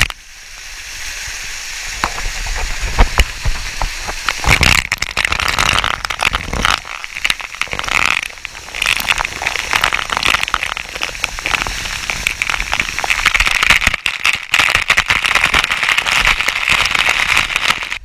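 Waterfall spray pelting the camera at close range: a loud, dense crackling spatter of water drops hitting the mic over the steady rush of falling water.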